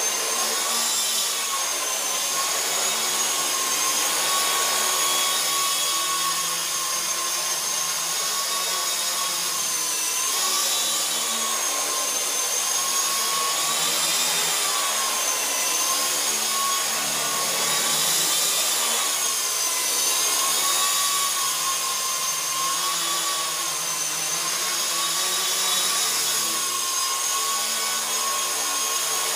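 WLtoys V912 electric RC helicopter hovering: the steady high whine of its electric main and tail motors and spinning rotor. The pitch rises and falls a little, again and again.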